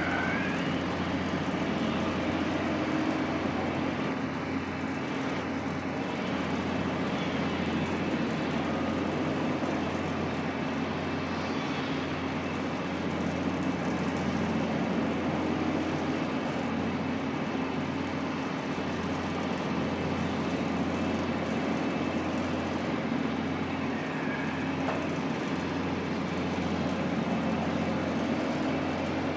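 Steady low mechanical drone of distant engines with background noise, unchanging throughout.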